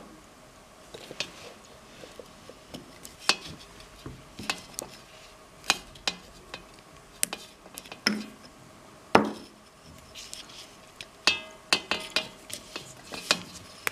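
Irregular light clicks and taps of hands working a lamp cable, its stripped sheath and wires against the socket's metal bracket, scattered sharp ticks with no steady rhythm.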